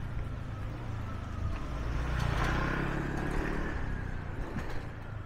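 A motor vehicle passing by on the street, its engine and tyre noise growing louder to a peak about halfway through and then fading.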